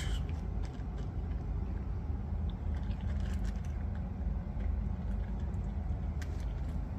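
Cat chewing and crunching its food, faint short clicks scattered through, over a steady low rumble from a running heater.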